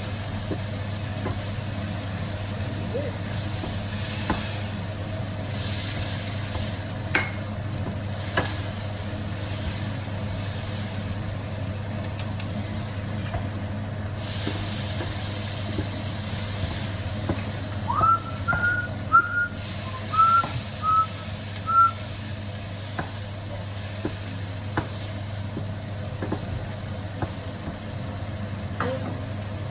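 A steady low hum under a faint hiss, with a few light clicks. About two-thirds of the way through comes a quick run of six or seven short, high, whistle-like chirps.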